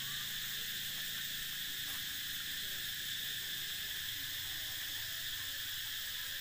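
Steady, high-pitched insect chorus chirring, with a faint low hum that fades out about halfway through.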